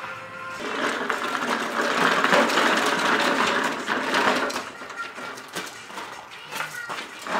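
Gas push lawn mower moving across gravel: a loud, rough clattering noise that starts about half a second in and eases after about four seconds into lighter clicks and crunches.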